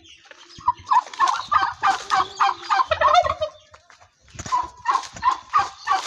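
Domestic turkeys gobbling: runs of quick, short notes, with a brief pause a little past the middle.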